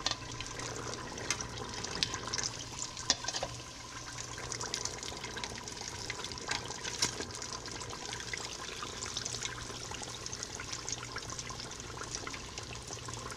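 Battered catfish deep-frying in a pot of hot oil: a steady sizzle and bubbling with scattered sharp pops and crackles. The bubbling is water still cooking out of the fish; it stops once the moisture has evaporated and the fish is done.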